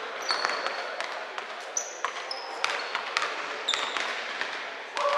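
Basketball game play: the ball bouncing repeatedly and irregularly on the court, with short high sneaker squeaks between the bounces.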